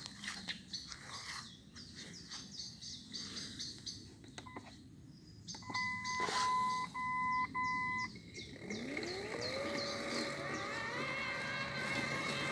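Scattered clicks, then a short series of electronic beeps about six seconds in, after which an electric appliance motor spins up with a rising whine and settles into a steady running hum with several tones.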